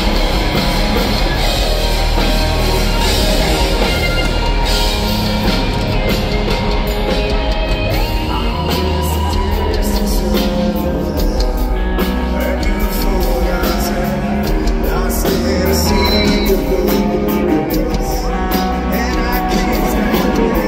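Rock band playing live through a concert PA: electric guitars, bass and drums, with a male singer.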